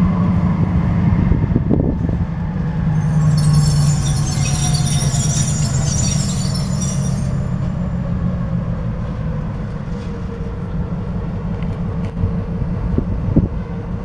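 Diesel switcher locomotive running as it pulls a string of boxcars past, its engine a steady low drone. Wheels squeal high on the rail for a few seconds near the middle, with a few clanks from the cars.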